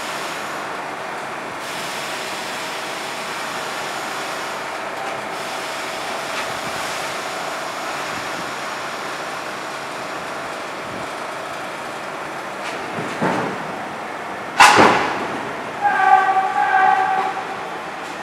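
R62 subway train standing in the station with its equipment humming steadily. Near the end comes a sudden loud burst, then a short run of chiming tones typical of the door-closing chime, just before the train starts to move.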